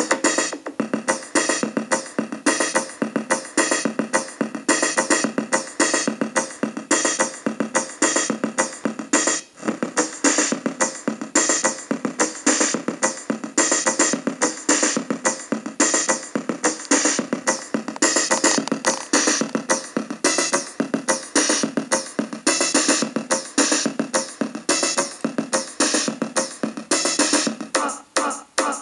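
Commodore 64 demo music played through its SID chip: an electronic track with a steady, fast drum-machine beat that briefly drops out about nine seconds in.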